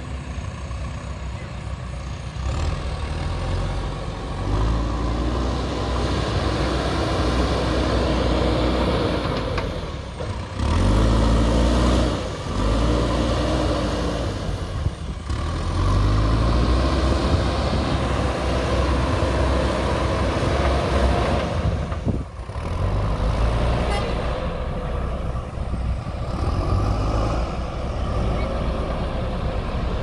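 JCB 3DX backhoe loader's diesel engine working under load as the front bucket pushes soil. The engine revs up and drops back several times.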